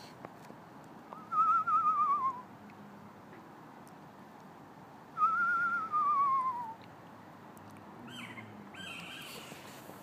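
Screech owl giving two quavering, whinny-like whistled calls that slide down in pitch, the first about a second in and the second, a little longer, about five seconds in. These are calls of a pair that the uploader says are mating.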